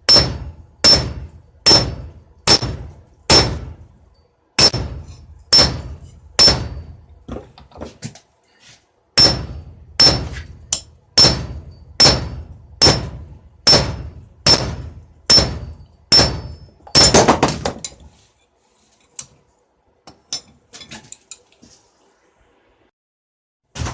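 Hand hammer striking steel on an anvil, a blow about every 0.8 seconds, each with a high ringing note. The blows pause briefly around the middle, then stop, followed by a short rougher noise and a few light clicks.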